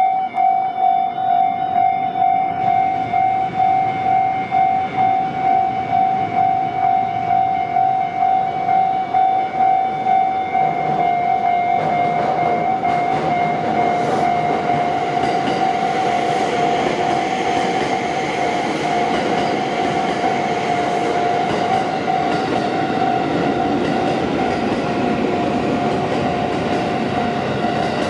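Electronic warning bell of a Japanese railway level crossing ringing with a steady clang about twice a second, signalling that the crossing is closed for a train. From about 12 seconds in, a passing train's wheel and running noise grows loud over it.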